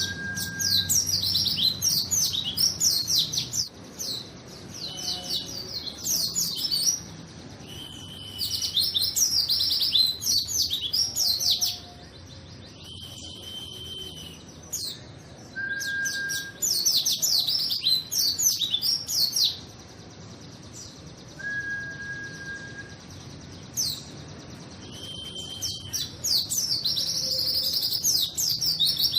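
White-eye (pleci) singing in repeated bursts of rapid, high twittering phrases, each a few seconds long, with a few single drawn-out whistled notes in the pauses between them.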